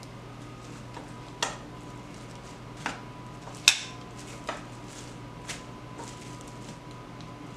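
Metal kitchen tongs clacking as they grip and turn raw steaks on a cutting board, several sharp clicks a second or so apart, the loudest about halfway through. A faint steady hum runs underneath.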